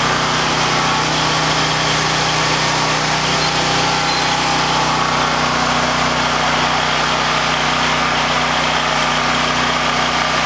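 Predator 9000-watt portable generator's gasoline engine running at a steady speed while carrying a whole-house load of about 4,000 watts (lights, well pump, fridges, freezers, ceiling fans), holding an even note without surging or bogging.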